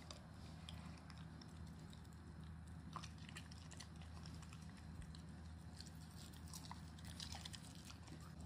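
Shiba Inu licking and chewing its food from a stainless steel bowl: faint, scattered small clicks and wet mouth sounds over a low steady hum.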